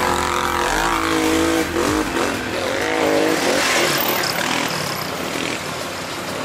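Quad bike (ATV) engines running and revving on a sandy dirt track. The engine note rises and falls for the first couple of seconds. About two seconds in, the sound changes sharply to a rougher, noisier engine sound from several quads.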